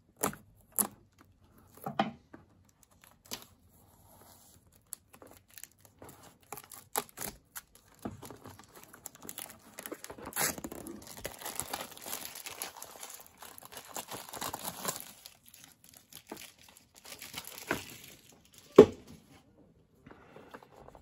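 Plastic shrink wrap being slit with a knife and peeled off a cardboard box: a few sharp clicks and scrapes at first, then a long stretch of crinkling and tearing plastic. One loud thump near the end.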